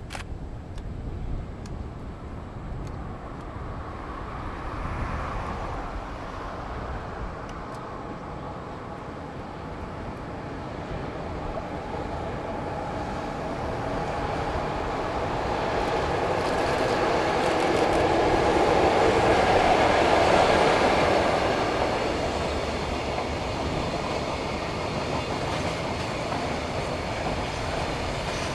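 JR Freight EF66 electric locomotive hauling the Toyota Long Pass Express container train, approaching and passing. The rumble of wheels on rail grows over about twenty seconds and is loudest as the locomotive goes by. The container wagons then roll past steadily.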